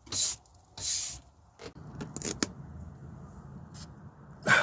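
Cleaning a floor by hand before gluing down floor tiles: two short hissing strokes in the first second, then steady rubbing with small clicks, and one sharp knock near the end.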